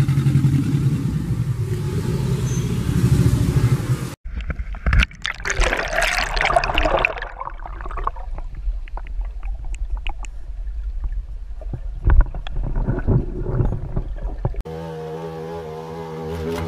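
Three spliced animal sounds. First a low rumbling alligator growl. After an abrupt cut, water gurgling and sloshing with scattered clicks. After a second cut about two seconds before the end, a hornet's steady wing buzz.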